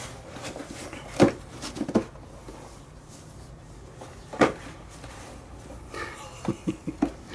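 A few scattered knocks and thuds, then a quick run of small knocks near the end, as a cat shifts about in a cardboard box of bottles.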